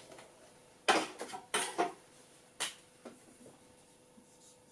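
A few short rubbing strokes of a whiteboard eraser wiping writing off the board, then a couple of lighter scrapes or taps, over a faint steady hum.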